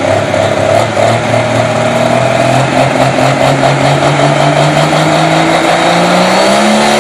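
Diesel engine of a pulling tractor running hard under load, loud and steady, its pitch climbing slowly and then more steeply near the end.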